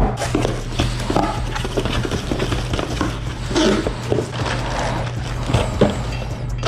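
Irregular knocks, taps and rustling of packaging and metal intake parts being handled and unpacked, over a steady low hum.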